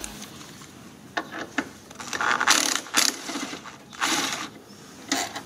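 Hand ratchet with a socket on an extension working a bolt loose from a plastic cover in the engine bay: a few clicks, then several short bursts of pawl clicking.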